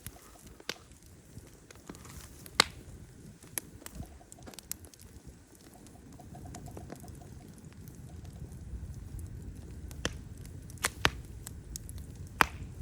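Wood fire crackling, with sharp irregular pops, the loudest about two and a half seconds in, over a low rumble that grows louder from about halfway.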